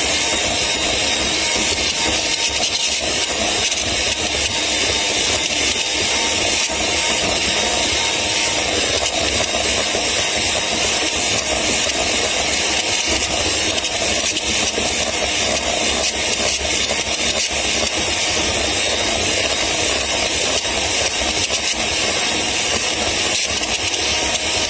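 Electric hand mixer running steadily at a constant speed, its twin beaters whisking a thin cocoa sponge batter in a glass bowl.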